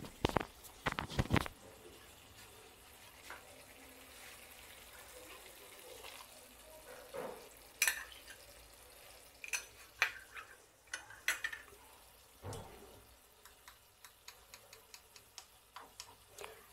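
Clicks and taps of a spoon and spatula on a nonstick pan as fresh cream is spooned into thick methi matar curry, over a faint sizzle from the pan. A few louder knocks come right at the start and many light ticks near the end.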